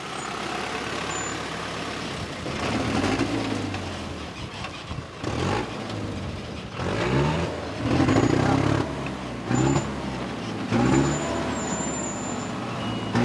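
Isuzu light truck's engine running and revved in several short rising bursts in the second half. The truck is showing worrying signs of fatigue and soon refuses to move.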